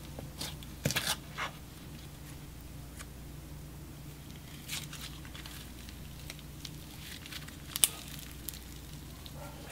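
Stiff grey magnetic slime being squeezed, stretched and torn by hand, giving scattered soft clicks and crackles. There is a small cluster about a second in, and one sharper pop shortly before the end.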